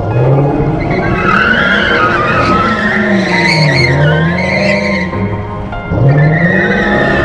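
2013 Dodge Challenger doing a burnout: the engine revs up and the rear tyres squeal with a wavering pitch. The squeal eases briefly about five seconds in, then returns with a fresh rev.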